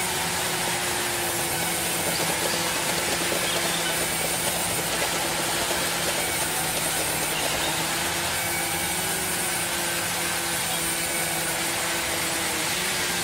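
Large vertical band saw running steadily as boards are fed through it: a constant machine hum with sawing noise and no pauses.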